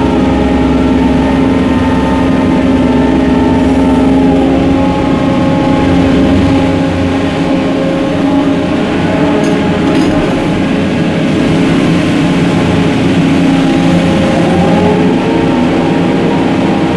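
Ship's deck cranes working clamshell grabs: a loud, steady machinery hum made of several tones. The deep rumble eases after about five seconds, and one tone slides upward briefly near the end as the crane winches change speed.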